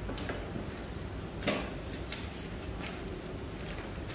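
Steady room hum with a few faint clicks and one sharper knock about one and a half seconds in.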